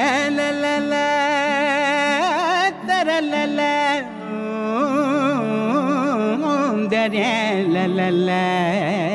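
A man singing live in a classical Indian style over a nylon-string acoustic guitar: he slides up into a long held note with wide vibrato, then sings wavering, ornamented runs between further held notes.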